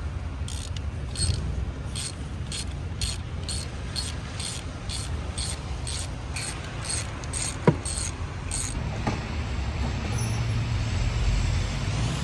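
Hand ratchet on a 5/8 spark plug socket clicking steadily, about three clicks a second, as a spark plug is worked loose by hand; the clicking stops after about eight seconds. One sharper click stands out partway through, over a steady low rumble.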